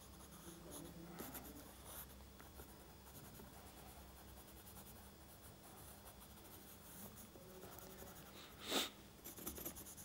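Faint scratching of a pencil shading a sketch on a pad of drawing paper, with one brief louder swish near the end.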